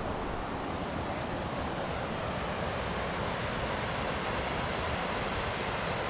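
Steady rushing of a fast river running over rocky rapids.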